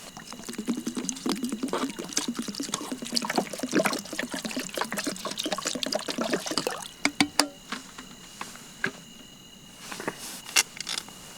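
Water pouring and splashing in a cooking pot as rice and cut potatoes are readied for boiling, for about seven seconds, followed by a few sharp clicks and knocks of the pot.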